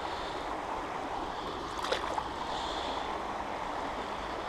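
River water flowing, a steady rush of noise, with one short sharp sound about two seconds in.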